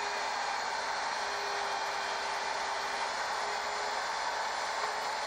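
Electric router with a half-inch straight bit running steadily at full speed while it cuts a hinge mortise, its guide collar following the notch of a template jig.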